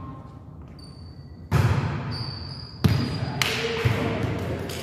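A volleyball being hit during a rally on an indoor court: three sharp smacks, the first about a second and a half in and two more close together near the middle, each echoing in the hall, with brief high shoe squeaks on the gym floor between them.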